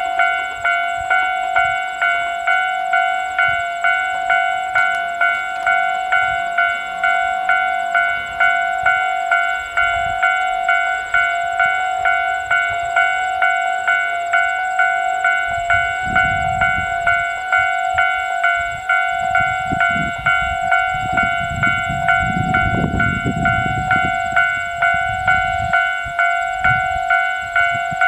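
Japanese railway level-crossing alarm ringing its normal electronic ding-ding, about two strokes a second. From about the middle to near the end, the low rumble of a train passing comes in under the alarm.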